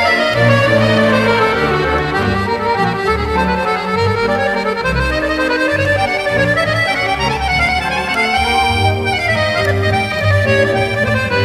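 Accordion music: a lively tune with a bass accompaniment, with runs of notes sliding up and down.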